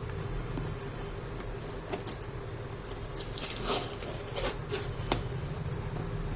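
Delivery packaging being torn open by hand: several short rips and crinkles, the longest about three and a half seconds in, over a steady low hum.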